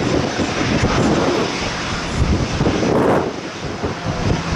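Jet engine noise from a formation of Canadair CT-114 Tutor jets flying past, a steady rumble that swells briefly about three seconds in.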